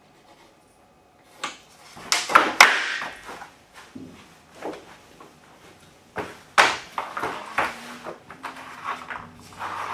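Laminate flooring planks being handled and laid onto dimpled plastic underlayment: a series of knocks and clatters, the busiest cluster about two to three seconds in and a sharp knock about six and a half seconds in.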